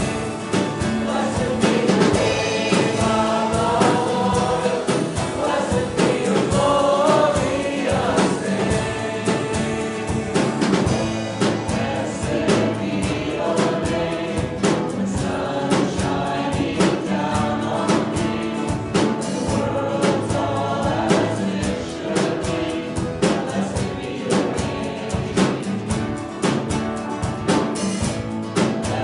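Church worship music: a group of voices singing a worship song together over a band, with a steady drum beat.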